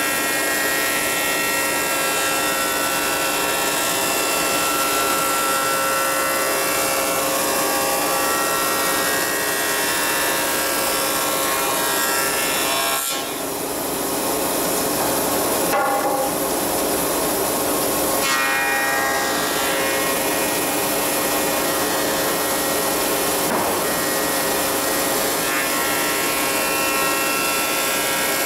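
Combination planer-thicknesser running as a rough-sawn tulipwood board feeds through the thicknesser and is planed to thickness. The noise is loud and steady with a constant whine, and dips briefly about halfway through.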